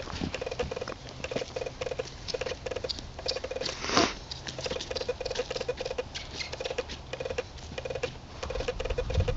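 Hoofbeats of a young American Paint Horse filly trotting: a steady, even patter of footfalls, with a single louder burst about four seconds in.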